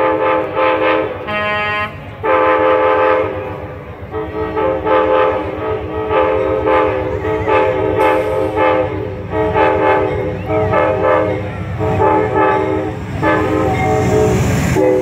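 Amtrak GE P42DC diesel locomotive's multi-chime air horn sounding a long series of blasts as the train approaches. Near the end the locomotive's engine and wheels rumble loudly as it passes close by.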